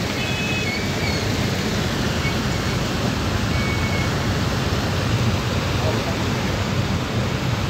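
Fish deep-frying in hot oil, a steady sizzle, over low street rumble.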